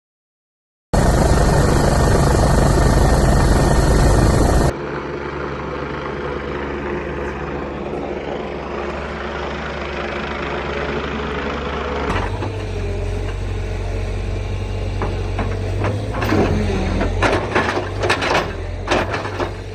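Loud rushing road and wind noise for about four seconds. It cuts to a hydraulic excavator's diesel engine running steadily as it digs. Near the end come repeated sharp knocks and scrapes of the bucket on soil and stones.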